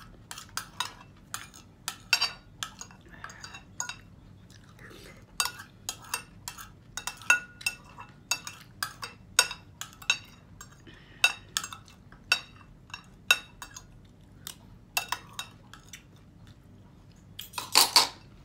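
Metal spoon and fork clinking and scraping against a ceramic plate, a string of sharp clinks every second or so as the last of the rice is scraped up, with a louder clatter near the end.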